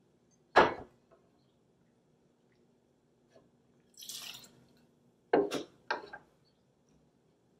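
A glass bottle knocks down onto a wooden counter, then bourbon is tipped from a jigger into a metal cocktail shaker tin with a brief splash, followed by two quick knocks of the jigger and tin on the counter.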